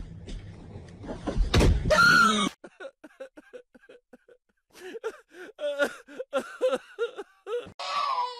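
A loud rumbling noise that swells about one and a half seconds in and stops at a sudden cut, followed by a toddler's short, repeated whimpering cries that grow louder toward the end.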